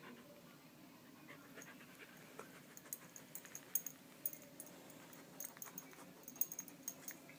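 A frightened beagle panting softly, with scattered light clicks and ticks from about three seconds in.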